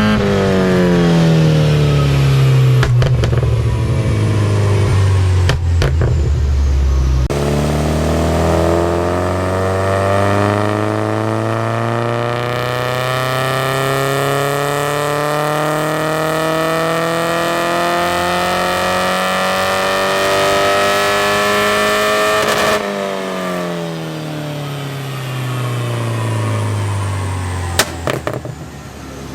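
Porsche 944's 2.5-litre eight-valve four-cylinder on E85, run on a dyno. It winds down with a few sharp exhaust cracks, then makes a long full-throttle pull with the pitch climbing steadily for about fifteen seconds. The throttle then shuts and the revs fall away, with loud pops from the exhaust on the overrun near the end.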